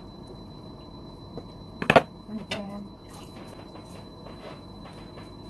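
A wooden spoon is put down on the hard kitchen surfaces with one sharp knock about two seconds in. A short hum of a voice and a few faint clicks follow.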